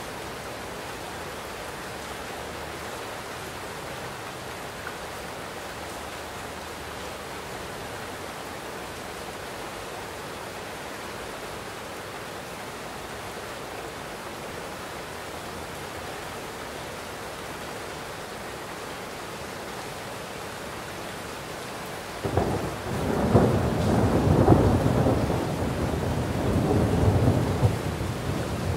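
Steady heavy rain, then about three-quarters of the way through a roll of thunder breaks in suddenly and rumbles on, loudest a couple of seconds after it starts.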